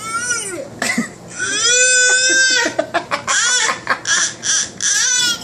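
A young child's loud, high-pitched vocalising. It opens with a squeal, then a long wavering cry, then a quick run of short shrieks in the second half.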